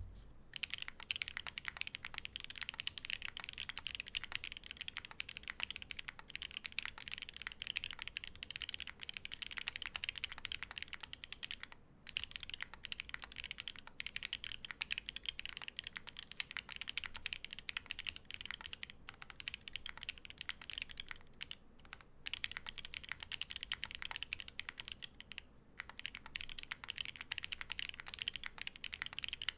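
Steady fast typing on a gasket-mounted Cycle 7 mechanical keyboard with Lichicx Yalasuo linear switches, PBT keycaps, an aluminium plate and no foam: a dense run of keystroke clacks with a few brief pauses.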